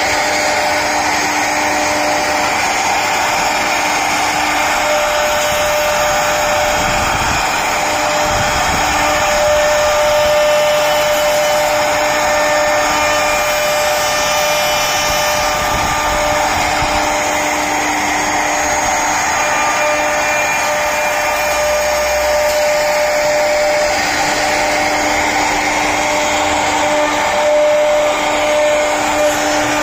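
CNC router spindle running and cutting wood: a steady, unbroken machine whine over a hiss of cutting noise.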